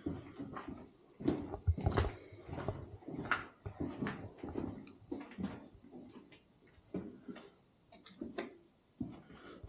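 Irregular scuffing footsteps and small knocks on a hard, debris-strewn floor, one to three a second, in an enclosed echoing tunnel.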